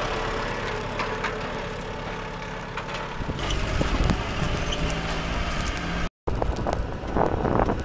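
Compact tractor engine running steadily as it tows an empty utility trailer, with scattered knocks. The sound cuts out for a moment about six seconds in.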